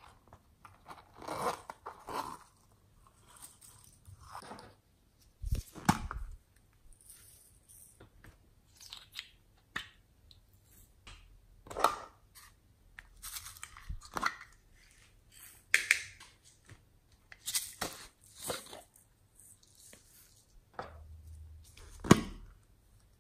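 Hands handling small plastic and silicone containers: a zip pouch being opened, then a plastic jar's screw lid twisted off. The result is a series of separate short rustles, scrapes and clicks, the loudest a sharp click near the end.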